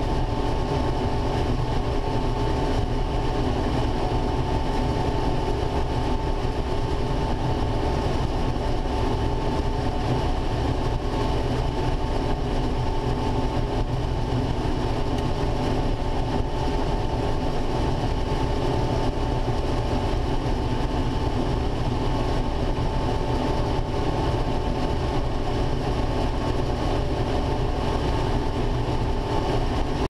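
Combine harvester running steadily while harvesting standing corn: a constant low machine rumble with a steady whine on top.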